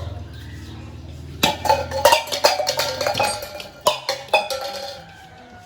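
A thrown ball hits a stack of metal drink cans, and the cans clatter and clink as they tumble. A quick run of knocks with short ringing starts about a second and a half in and dies away after about three seconds.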